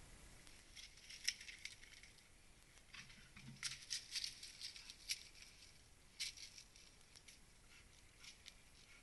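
Faint, irregular clicks and scratchy scrapes, bunched together in the middle, as a bear moves over rock and dry leaf litter.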